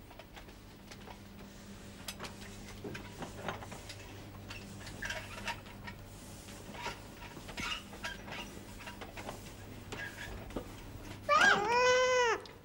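Light clinks and knocks of crockery and cutlery being handled on a table. Near the end comes a loud, high-pitched cry, held for about a second, rising and then falling in pitch.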